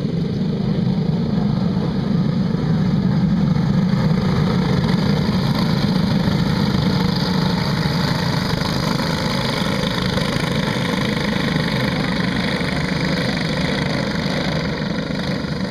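A pack of racing go-karts running together, their small engines making a steady, dense drone that swells over the first few seconds as the karts come close, then eases off slightly as they move away.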